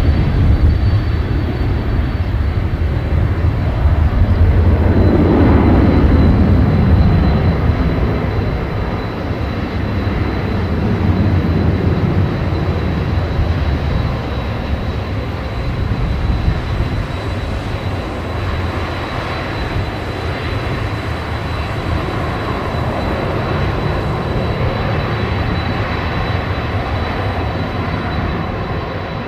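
Boeing 767-300 airliner's jet engines running loudly as it rolls out on the runway after landing, with a thin steady high whine throughout. The deep rumble is heaviest for the first several seconds, then eases to a steadier, somewhat quieter engine noise as the jet slows.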